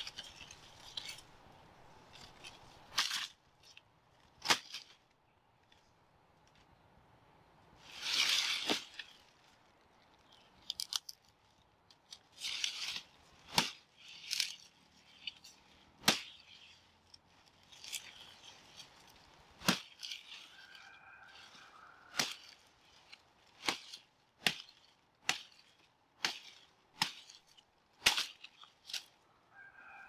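Dry sugarcane stalks and leaves being handled and broken: a run of sharp, irregular snaps and cracks, with a longer dry rustle about eight seconds in.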